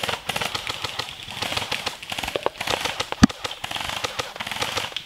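Airsoft guns firing in rapid bursts, a fast crackle of shots with one louder crack about three seconds in.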